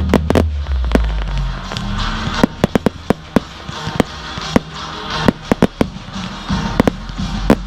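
Consumer fireworks going off in a string of sharp, irregular cracks, coming thicker in the second half, over show music with a steady bass.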